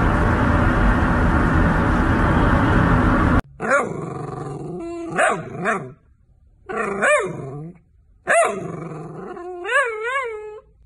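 A steady rushing noise cuts off suddenly about three and a half seconds in. Then a long-haired dachshund makes about five drawn-out pitched vocal sounds, each rising and falling in pitch, the later ones wavering, like the dog is 'talking' back.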